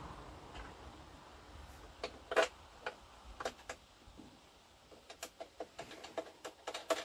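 Irregular light clicks and taps of small hard parts being handled: a few spaced clicks, then a quicker run of about two or three a second in the second half. A low steady noise fades away in the first second.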